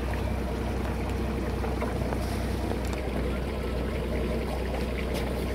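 Sailing ship's inboard engine running steadily, a low drone, as the boat motors under furled sails, with wind and water noise on deck.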